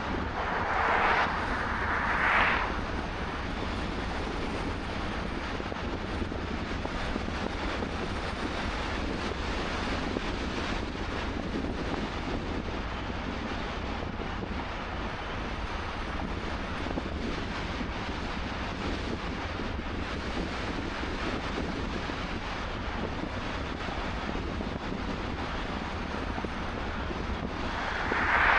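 Steady rush of wind and tyre noise from a car driving on a highway. Oncoming cars whoosh past twice in quick succession about a second in, and once more near the end.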